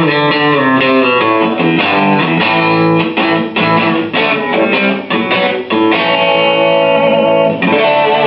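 Electric guitar played through the Dirty Dog distortion pedal on its crunch channel, giving a lightly distorted, full sound. Quick runs of picked notes and chords, then a chord held about six seconds in and another strummed near the end and left ringing.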